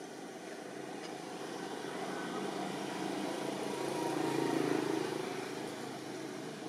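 A vehicle passing at a distance: engine and road noise swells to a peak about four and a half seconds in, then fades.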